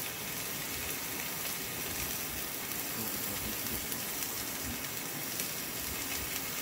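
Beef steak sizzling steadily on a hot griddle pan.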